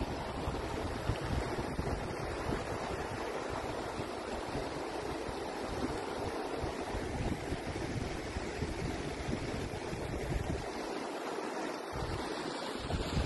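Shallow snowmelt river rushing over a gravel bed, a steady wash of water, with wind buffeting the microphone; the buffeting eases briefly near the end.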